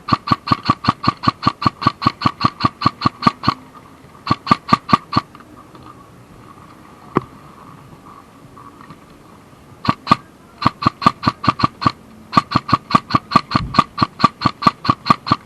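Airsoft gun firing on full auto at about six to seven shots a second, in long bursts with pauses between them, each shot a sharp crack with a ringing tone.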